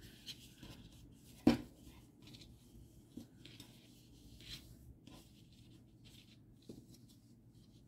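Faint rustling of hands handling a crocheted yarn toy on a tabletop, with one sharp tap about a second and a half in and a few lighter ticks.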